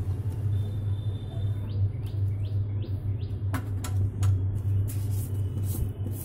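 A bird chirping a quick run of five short falling notes about two seconds in, over a steady low hum; a few sharp clicks follow in the second half.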